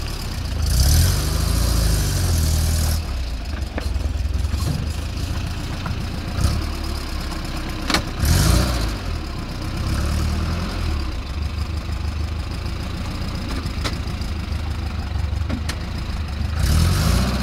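Steyr-Puch Pinzgauer 4x4 off-road truck engine working at low speed over rough ground, revving up and falling back in repeated surges, with a sharp knock about eight seconds in.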